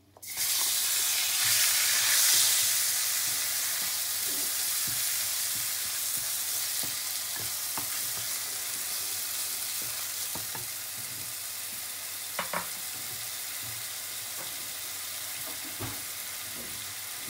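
Chopped onions dropped into hot oil in a pan and frying. The sizzle starts suddenly and is loudest in the first few seconds, then settles to a steady fry while a wooden spoon stirs. A few light spoon knocks sound against the pan.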